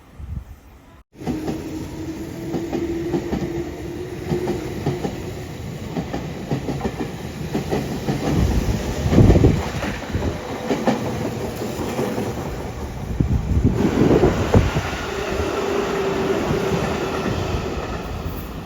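A freight train passing close by, its wheels clacking rhythmically over the rail joints with a steady hum underneath; it grows louder twice as heavier wheel sets go by.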